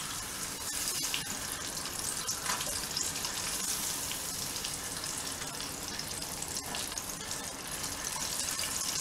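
Battered fish pieces deep-frying in a pot of hot oil: a steady bubbling hiss, with a few sharp ticks along the way.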